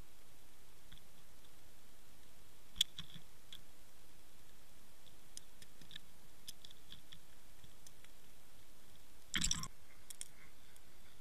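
Faint underwater recording from a camera in a waterproof housing on a fishing line among feeding fish: scattered sharp clicks and ticks over a steady hiss. About nine seconds in comes a short, louder burst of knocking.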